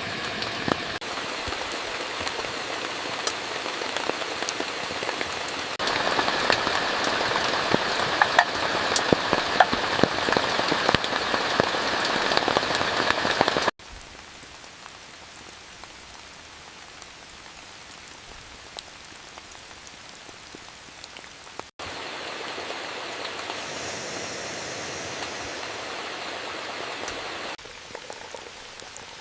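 Heavy rain falling, with dense close drop impacts over a steady hiss. About 14 seconds in it cuts suddenly to quieter, steadier rain, then about 22 seconds in it steps back up to a moderate downpour.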